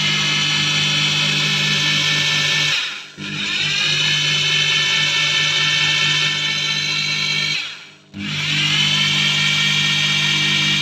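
Bosch GBH 2-21 SDS-plus rotary hammer running flat out with a steady high whine. The trigger is released twice, about three seconds in and again near eight seconds: each time the motor winds down in pitch, then spins back up as it is squeezed again.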